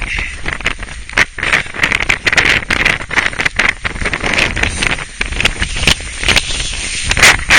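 Strong gusting wind on a mountain summit buffeting the microphone, rising and falling in loud gusts with repeated sharp buffets.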